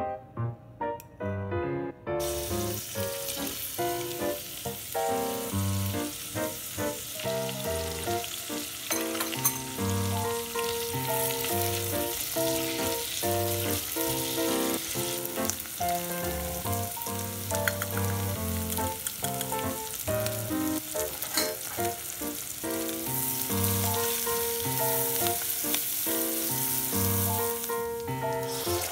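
Chopped celery, carrot and onion sizzling as they sauté in melted butter in a stainless steel pot. The sizzle starts suddenly about two seconds in, when the vegetables go into the hot butter. Piano background music plays throughout.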